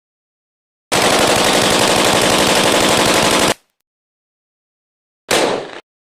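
AK-47 rifle sound effect firing on full automatic: one sustained burst of about two and a half seconds, then a short burst of about half a second near the end that fades and cuts off abruptly.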